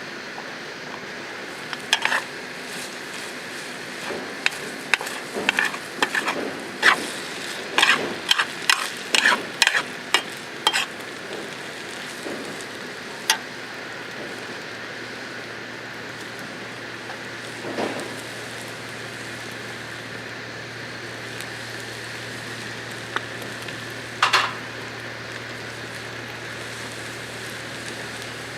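Food sizzling in a pan, with a quick run of clicks and scrapes from a utensil stirring it, then a few single clicks over the steady sizzle.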